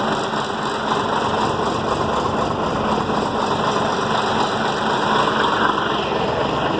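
Diesel engine of a narrow-gauge sugar-cane railway locomotive running steadily at close range as it moves slowly past.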